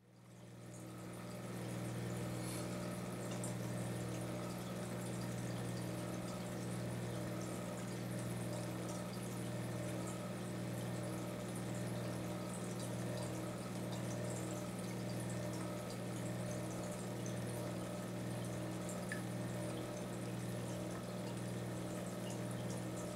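Aquarium pump humming steadily, with water bubbling and trickling in the tank. The sound fades in over the first second or two.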